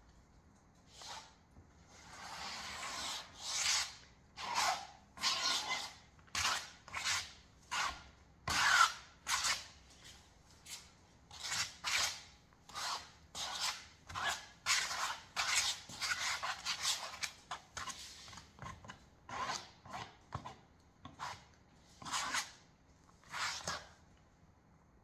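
A plastic comb scraped again and again across wet paint on a stretched canvas, texturing the underpainting. The strokes come about one to two a second, with a longer continuous rub about two seconds in.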